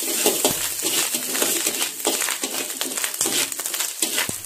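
Chopped shrimp sizzling in hot oil in a steel wok, with a metal spatula repeatedly scraping and tapping the wok as it is stirred.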